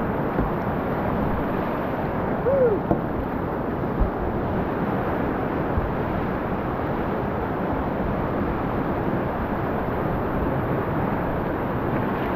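Steady rush of river water through whitewater rapids. About two and a half seconds in there is a brief high call that rises and falls, and about four seconds in a single knock.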